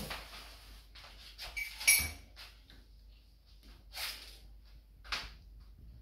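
Packing material being handled during an appliance unboxing: a sharp clatter about two seconds in, then two brief rustling, scraping noises.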